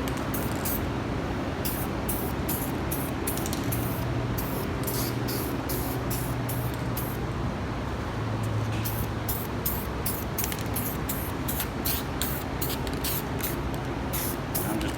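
Aerosol spray can of flat camo paint hissing in many short, quick passes while a light base coat goes on, over a steady low hum.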